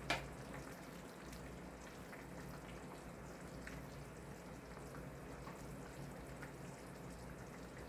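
Pot of chicken vegetable noodle soup simmering faintly, with scattered small pops and ticks over a low steady hum.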